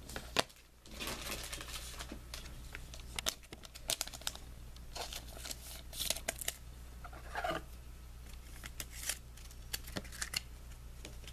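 A trading card pack being handled and opened: its wrapper crinkles and tears, and the cards click and rustle as they are slid and tapped, in a string of short, irregular sounds.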